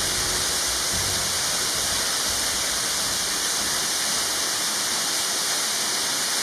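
Narrow waterfall plunging over a rock ledge into a shallow pool: a steady, even rushing splash of falling water.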